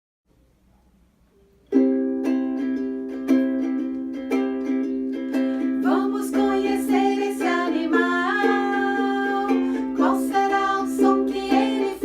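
Children's song: a strummed string instrument starts playing chords about two seconds in, and a voice begins singing the verse about halfway through.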